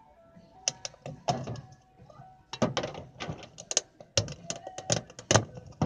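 Handling noise: a rapid, irregular run of sharp clicks and knocks, busiest in the second half.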